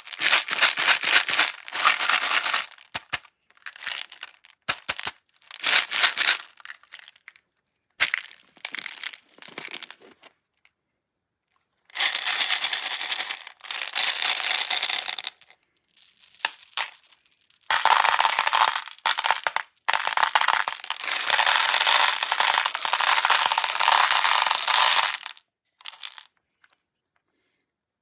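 Plastic beads pouring and sliding across trays in a dense crackling rush. It comes in several separate pours with short silent gaps, and the longest pour runs for about seven seconds in the second half.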